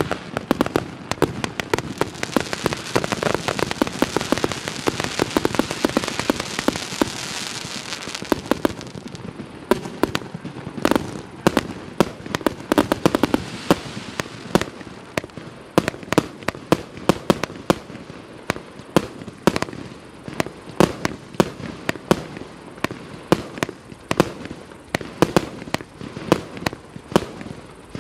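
A 120-shot multi-calibre firework cake (FP B337 battery) firing. For about the first eight seconds there is a dense hiss and crackle of shots packed close together; after that come separate sharp launch reports and star bursts, a few each second.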